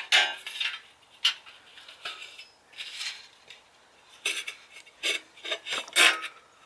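Sheet-metal drip edge being bent and worked back and forth by hand at a cut so the piece breaks off: thin metal flexing, rubbing and rattling in irregular bursts, loudest near the end.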